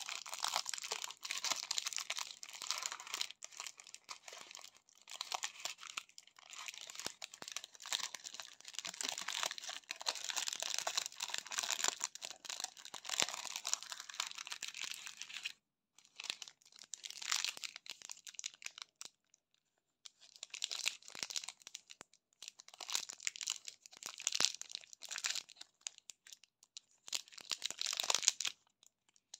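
Foil and paper candy wrappers crinkling and rustling as chocolates are unwrapped by hand, a continuous run at first and then in separate bursts with short pauses. Near the end a crinkly plastic candy-bar wrapper is torn open.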